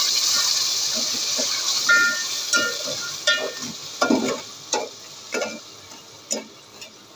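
Metal spoon stirring sugar, milk and cream in an aluminium pot, scraping and clinking against the pot's sides in repeated strokes with a ringing metallic tone. Under it a sizzling hiss from the hot pot fades gradually as the sugar melts.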